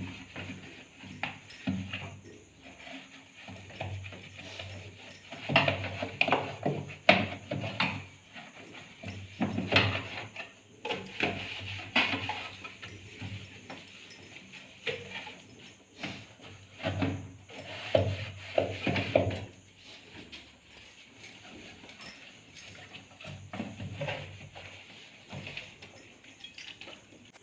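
Irregular knocks, clatter and rubbing from fridge parts being scrubbed and handled during cleaning.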